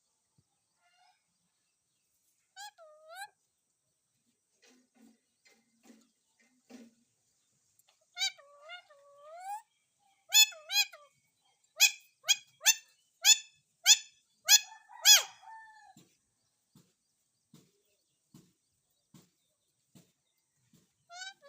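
Green parrot calling: a few scattered pitched calls, then a run of about eight loud, sharp calls about half a second apart, followed by faint soft ticks.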